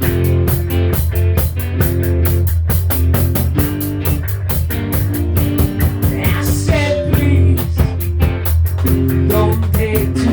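Rock music with a steady drum beat, guitar and bass, with a gliding voice-like line about six seconds in.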